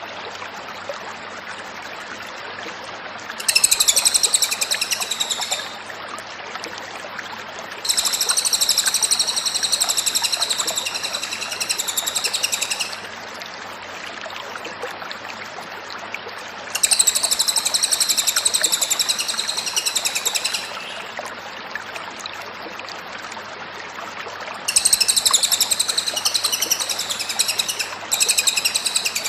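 Cililin (grey-headed canary-flycatcher) singing: five high-pitched song bouts of a few seconds each, with pauses between them, over a steady background hiss.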